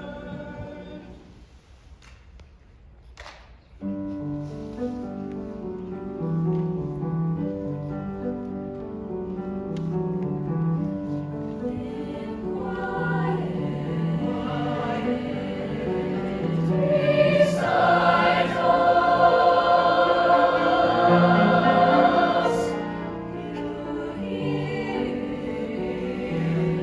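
Choir singing sustained chords, entering after a brief hush a few seconds in, swelling to its loudest stretch past the middle and then easing back.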